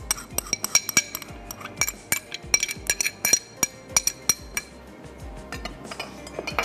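A tablespoon clinking and knocking against a mixing bowl as yogurt is spooned in on top of gram flour, several sharp clinks a second, thinning out near the end.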